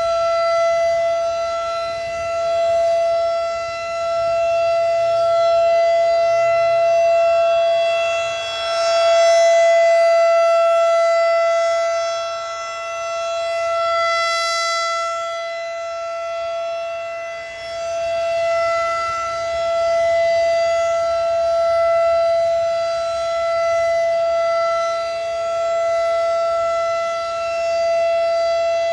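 Federal Signal 2001-DC rotating outdoor warning siren sounding its steady 670 Hz alert tone during a monthly test. The pitch holds steady while the loudness swells and fades as the horn slowly turns.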